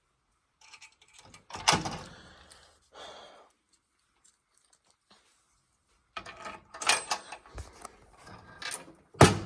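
A bunch of keys jangling, with metal clicks and clacks of handling in two spells and a sharp knock near the end.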